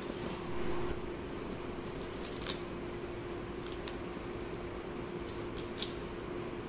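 Scissors snipping and cutting through plastic stretch wrap and packing tape on a cardboard parcel, heard as a few short, sharp snips. A steady low hum runs underneath.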